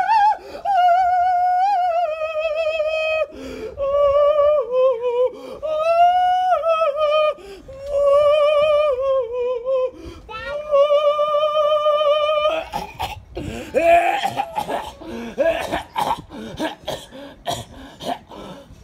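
A man's high, wordless falsetto singing in long held notes that waver and slide in pitch. About twelve seconds in it gives way to a quick run of sharp clicks and snaps mixed with short vocal sounds.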